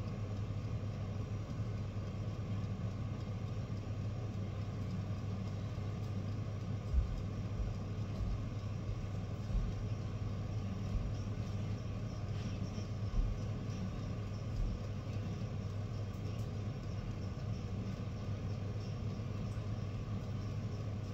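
Steady low mechanical hum from a running machine, with a few soft low thumps between about seven and fifteen seconds in.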